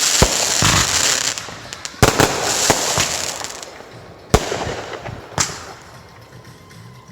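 Consumer fireworks going off: a crackling fizz dies away over the first second and a half, then sharp bangs about two, four and a half, and five and a half seconds in, each followed by fading crackle.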